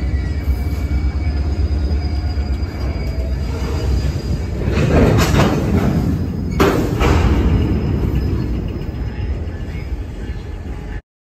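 Freight boxcars rolling past on the rails: a steady low wheel rumble with faint wheel squeal. A cluster of metallic clanks comes about five seconds in, then a sharp bang about a second and a half later, and the sound cuts off abruptly just before the end.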